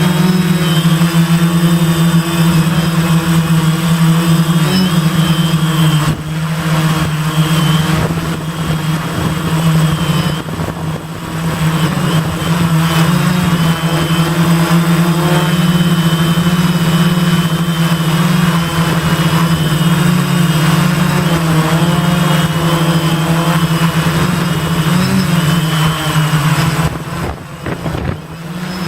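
Gaui 500X quadcopter's electric motors and propellers buzzing steadily in flight, the pitch wavering slightly as the motor speeds shift. The buzz drops briefly a few times.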